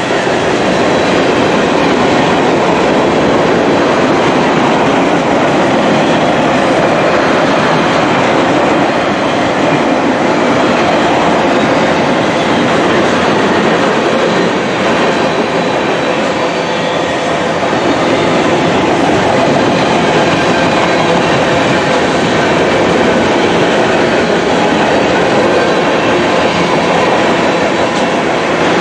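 Freight train cars (covered hoppers, pallet-loaded flatcars, tank cars) rolling past close by, with the steady loud noise of steel wheels on the rails.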